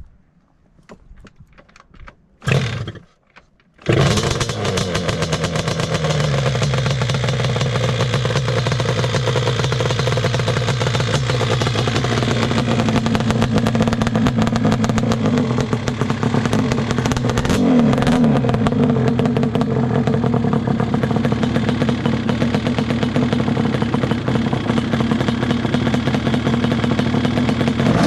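Yamaha Banshee quad's twin-cylinder two-stroke engine being started. A short burst comes first, then it catches about four seconds in, drops to a steady idle and runs on, with a quick blip of revs past the middle.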